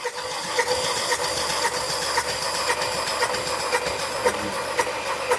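Starter cranking the 2.0 TSI four-cylinder engine with its spark plugs out, a steady rhythmic churn, during a compression test of cylinder 3. That cylinder reads low, about 160 PSI against 215–230 on the others, which the mechanic takes for a valve-train problem, probably a skipped timing chain.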